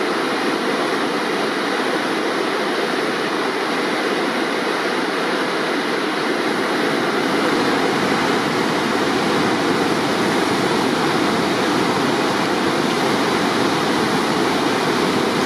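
Loud, steady rush of a river in flood pouring over rocks and small falls as white-water rapids.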